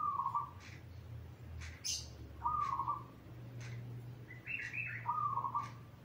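Zebra dove (perkutut) cooing: three short, rippling coo phrases about two and a half seconds apart, the last preceded by a higher note.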